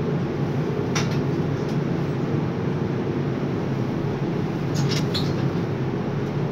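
Steady low drone of a hot-metal overhead crane's machinery heard inside the operator's cabin, with a few short high squeaks about a second in and again near the five-second mark.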